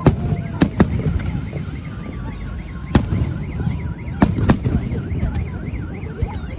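Fireworks shells bursting: about half a dozen sharp bangs at uneven intervals, over a steady low rumble. A car alarm warbles in the background from about a second and a half in.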